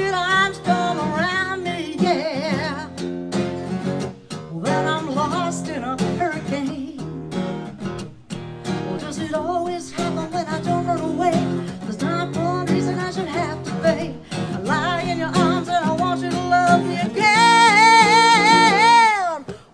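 Acoustic guitar strumming under a singing voice in wavering, wordless-sounding runs, building to one long held high note with vibrato near the end that slides down and breaks off.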